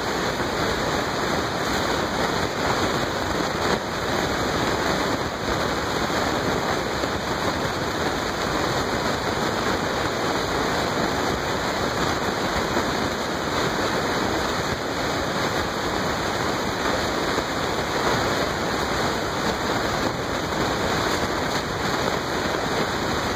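Steady rushing noise, even from low to high pitch, with no breaks.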